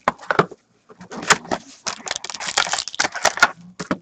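Crinkling and rustling of a hockey trading-card box and its wrapped packs being opened and handled, in irregular bursts from about a second in.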